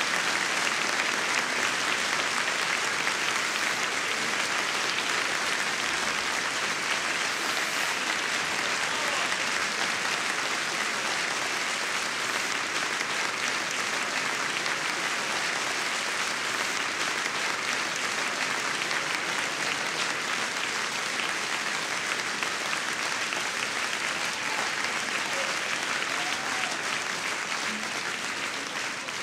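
Audience applauding steadily, a dense clapping that dies away near the end.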